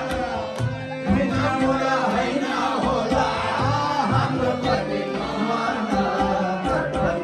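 A male singer singing live into a microphone, accompanied by his own harmonium's sustained reedy chords, amplified through the bar's PA.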